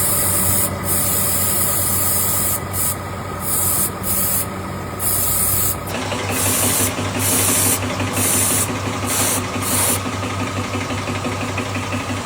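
Machinery running with a steady low hum and a few faint steady tones, under a loud hiss that keeps breaking off for a moment and coming back, every second or so. About halfway through, the sound changes and the hum grows stronger.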